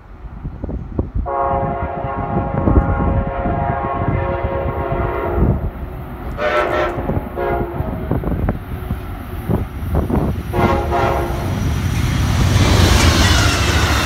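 Amtrak P42DC diesel locomotive's five-chime K5LA horn sounding as the train approaches: one long blast of about four seconds, then two short blasts. The train's low rumble builds underneath, and near the end it passes close with loud wheel and rail noise.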